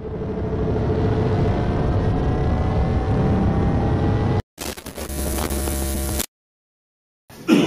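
Whoosh sound effect: a steady rushing noise with a faint tone slowly rising through it. It breaks off abruptly about four and a half seconds in, followed by a shorter, deeper rumbling burst that cuts off to silence.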